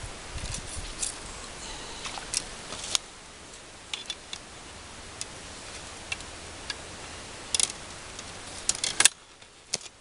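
Scattered sharp clicks and ticks over a steady hiss, the loudest a cluster about nine seconds in, after which the hiss drops away.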